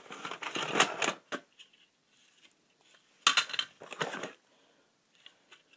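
Packing material crinkling and rustling as boxes are unpacked by hand, in two bursts, the second about three seconds in.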